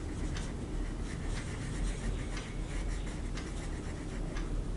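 Colouring on paper: a colouring tool scratching in short, irregular strokes, over a low steady hum.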